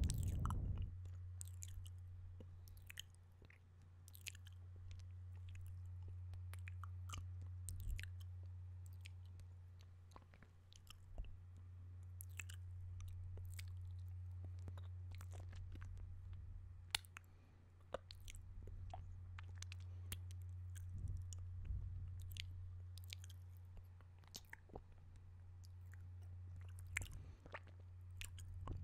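Close-miked mouth sounds: wet clicks and smacks of lips and tongue, scattered irregularly, over a low steady hum.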